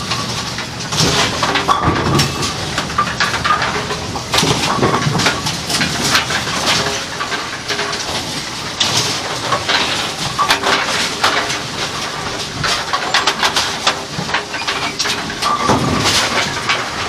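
Kegel Pin Shine bowling-pin cleaning machine running, with a faint steady hum under continuous sloshing of foam and irregular knocks and clatter as pins are handled in its tub.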